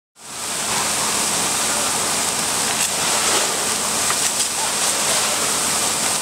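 Tractor on fire: a steady rushing hiss of flames with a few scattered crackles and pops.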